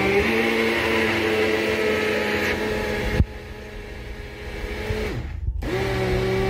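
Small electric kitchen blender's motor running in pulses: it runs steadily, gives a knock about three seconds in and runs quieter after it, then stops for a moment near the end and starts again.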